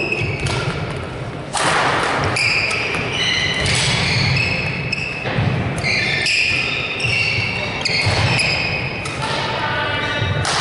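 Badminton rally: rackets striking the shuttlecock with sharp cracks, court shoes squeaking on the wooden floor and feet thudding, echoing in a large hall.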